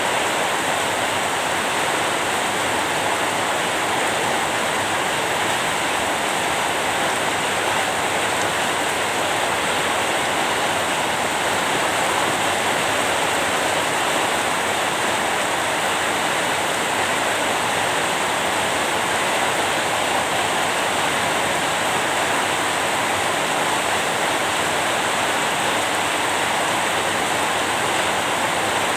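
Steady rain, a continuous even hiss with no separate drops or thunder standing out.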